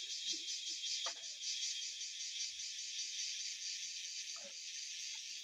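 Insect chorus in jungle: a steady high shrill that pulses evenly, about four to five times a second.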